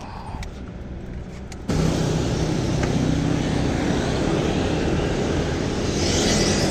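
Traffic and road noise, which gets suddenly much louder less than two seconds in and then stays steady.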